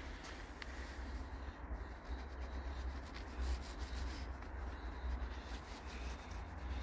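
A cloth rubbing and wiping across a polished black stone headstone, over a low steady rumble.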